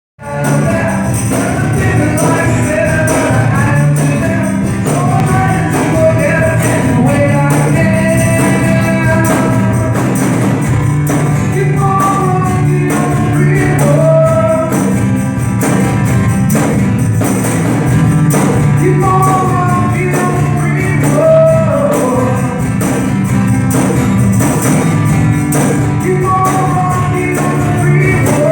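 A group playing music: a voice singing a melody over a steady, dense percussion beat with bass.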